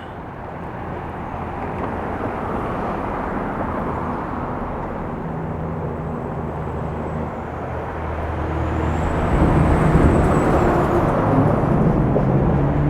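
A steady rushing noise with an engine's drone. The drone comes in about five seconds in, grows louder from about eight seconds and stays loud to the end, with a faint high whine rising and falling as it peaks.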